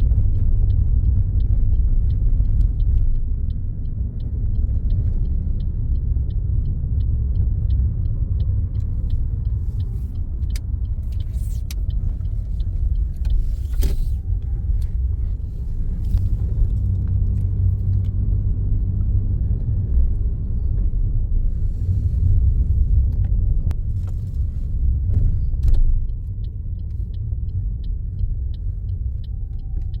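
Car cabin road and engine rumble while driving, with the turn indicator ticking at a steady pace for the first dozen seconds and again near the end.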